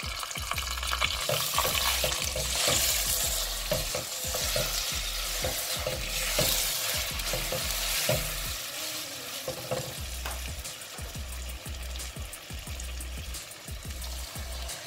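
Sugar being stirred into hot ghee in a frying pan: a steady sizzle with repeated scrapes and knocks of the spoon against the pan. The sizzle swells about two seconds in and again around six seconds.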